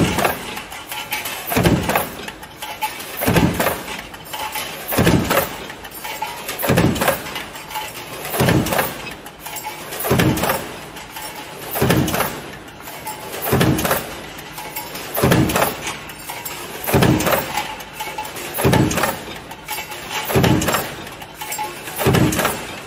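Automatic stamping line for metal junction boxes cycling steadily, one loud press stroke roughly every 1.7 seconds, each ringing on briefly.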